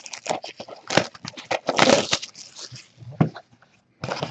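Trading cards and cardboard card boxes being handled and shuffled: irregular clicks, scrapes and rustling, with a brief pause near the end.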